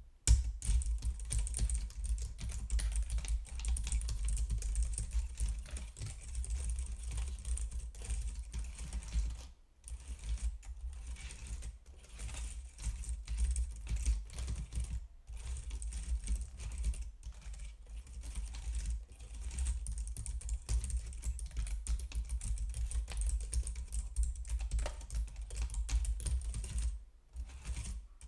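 Rapid, continuous typing on a computer keyboard, key clicks in quick succession with brief pauses about ten seconds in, about fifteen seconds in and near the end, over a steady low rumble.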